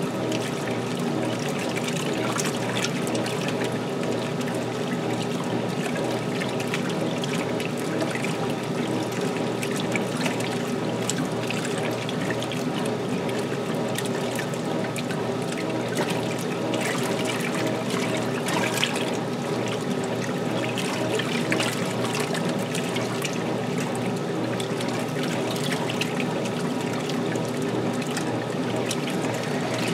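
1978 Maytag LA806 washing machine running mid-cycle: a steady hum from its motor and drive with water running and splashing in the tub.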